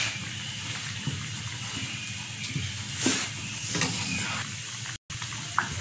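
Thick blended haleem simmering in a pot on the stove: a steady hiss with a few soft bubbles breaking the surface.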